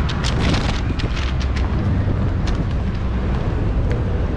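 Outdoor street noise: a steady low rumble with a run of sharp clicks in the first second and a half.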